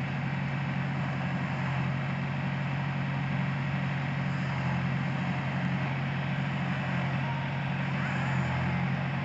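Backhoe loader's engine running at a steady, unchanging speed.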